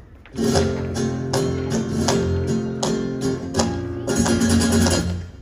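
Live flamenco guitar playing a farruca, with strummed chords and sharp accented strokes at intervals. It starts up just after a brief pause and falls away near the end.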